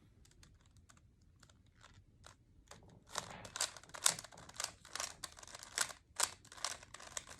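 Rubik's Cube layers being turned by hand: a run of quick plastic clicks, sparse and faint at first, then dense and louder from about three seconds in.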